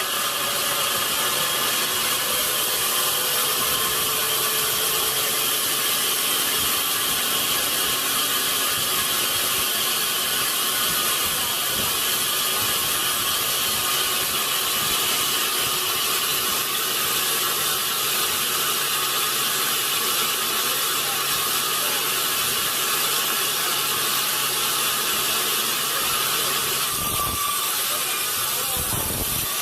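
Sawmill machinery running steadily, a constant hiss over a low hum.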